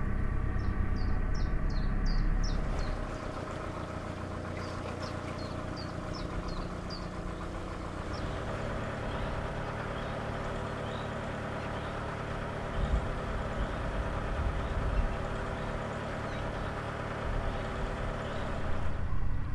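Narrowboat's engine running steadily as the boat cruises along the canal, with small birds chirping over it for the first several seconds.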